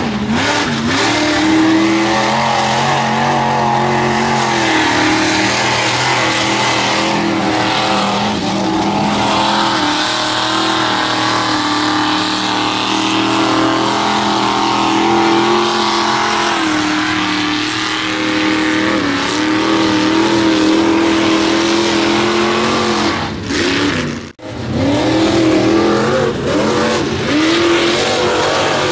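Small-block Chevy V8 of a mega mud truck running loud under heavy throttle, repeatedly revved up and down as the throttle is pumped, over the rushing noise of big tires churning and throwing mud. The sound cuts out for an instant about two-thirds of the way through, then the revving picks up again.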